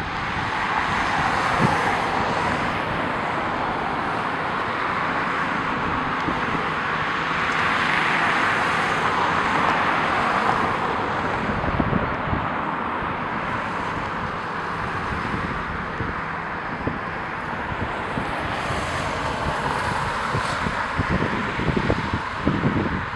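Wind buffeting the microphone in irregular low gusts over a steady rushing noise that swells and eases about a third of the way through.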